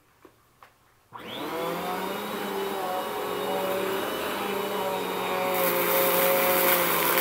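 Bissell PowerForce Compact upright vacuum cleaner switched on after two faint clicks: its motor spins up about a second in with a rising whine, then runs steadily. It grows louder and hissier about five seconds in.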